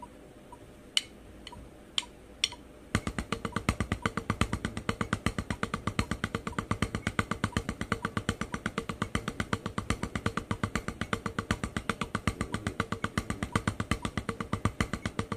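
Wooden drumsticks playing fast, even alternating single strokes on a rubber drum practice pad, about eight strokes a second, in a single-stroke threes-to-fours turnaround. The strokes start about three seconds in, after four sharp count-in clicks on a faint metronome ticking twice a second.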